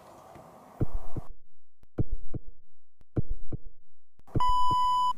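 Edited-in heartbeat-style suspense sound effect: deep thumps, mostly in pairs, about a second apart. A steady high electronic tone comes in near the end.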